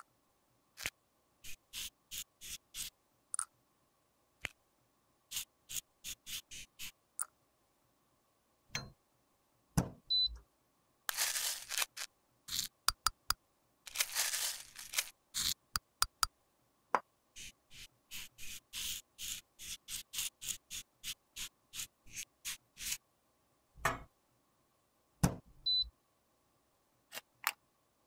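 Metal tweezers clicking and tapping against a metal powder compact and a small glass beaker, in many short, sharp, separate taps. Twice near the middle, a metal spatula scrapes and crushes crumbled pressed powder in the compact.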